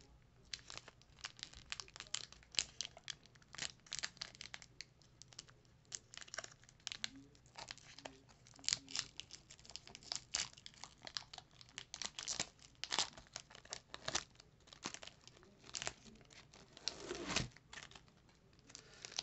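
Metallic foil wrapper of a Pokémon card booster pack crinkling and tearing as it is pulled open by hand, with irregular sharp crackles throughout.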